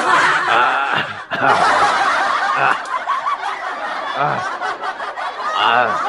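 Laughter that goes on with only a brief break about a second in.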